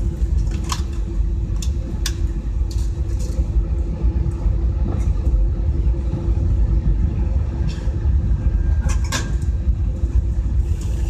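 Jet airliner cabin noise: a steady low rumble with a constant hum over it. A few sharp clicks or rattles come through, near the start, about two seconds in and about nine seconds in.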